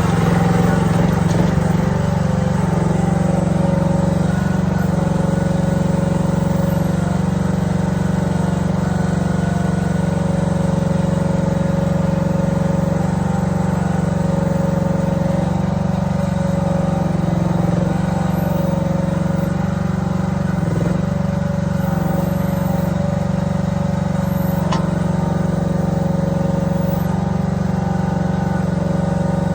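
Small engine of a Chinese mini excavator running steadily, with a few brief wavers in pitch around the middle.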